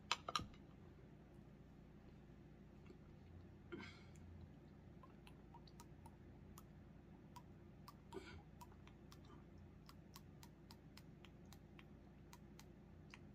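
Near silence with faint, scattered ticks from a small hot sauce bottle being shaken over a plate of food. The ticks come more often in the second half, with two slightly louder soft knocks about 4 and 8 seconds in.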